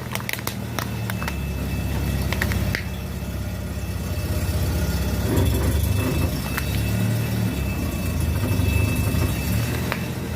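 A motor vehicle's engine running at low revs, with a few sharp cracks in the first three seconds as objects are crushed.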